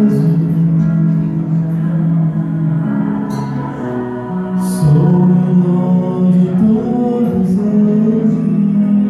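A man sings a gospel hymn into a handheld microphone, amplified through the hall's sound system. He holds long notes and moves to a new pitch every second or two.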